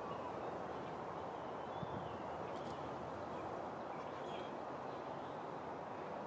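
Steady outdoor background noise, with a few faint, short bird chirps about two and a half and four seconds in.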